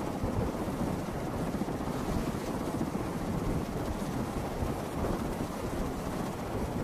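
Military transport rotorcraft's rotors running while it sits on the ground, with the rotor downwash buffeting the microphone: a steady, dense rush of noise, heaviest in the low end.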